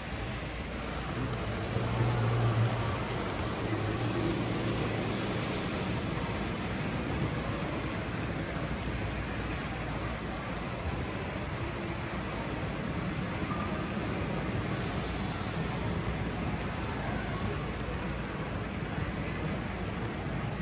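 Steady background rumble of a large exhibition hall, with a low hum that swells briefly about two seconds in.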